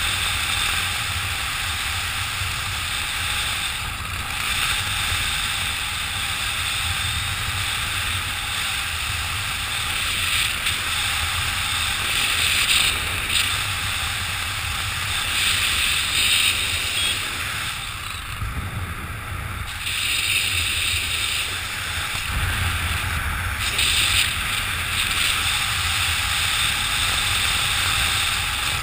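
Wind rushing over a camera microphone during a parachute descent: a steady low rumble and hiss that swells in gusts every few seconds.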